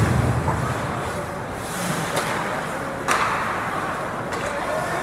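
Ice hockey play heard from rinkside: a steady rink hum of skating and play, a low boom from the boards fading at the start, and a sharp crack of stick or puck about three seconds in, with a few fainter clicks.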